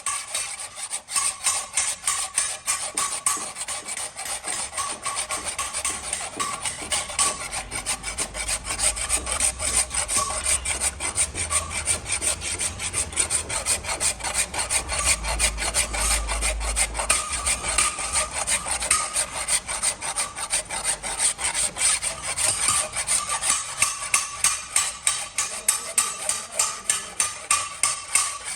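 Hand file rasping along the steel of a hoe blade in quick, even strokes, a few per second, as the edge is worked.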